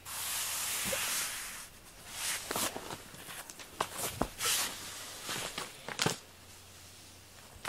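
Cat toys being handled: a loud rustle for about a second and a half, then scattered light clicks and taps as a toy and a teaser wand are moved about on the floor.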